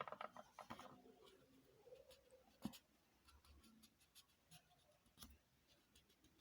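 Faint handling sounds of felt craft pieces on a work surface: a spell of rustling and clicks at the start, then a few single light knocks, one about two and a half seconds in and another near five seconds in.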